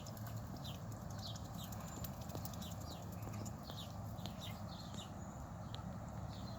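Small birds chirping, short high falling notes a few times a second, over a faint low steady hum.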